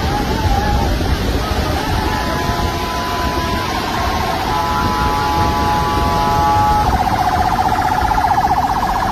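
An electronic siren sounds over a loud, steady rushing noise. From about two seconds in it holds steady tones that step in pitch a few times, then near the end it switches to a fast warble.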